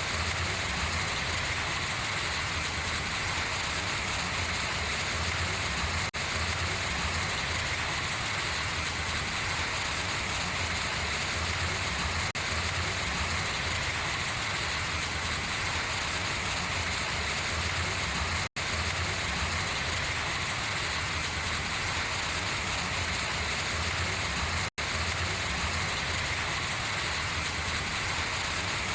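Steady rain pattering on large leaves and water running off them, an even continuous hiss. Two brief cuts to silence come in the last third.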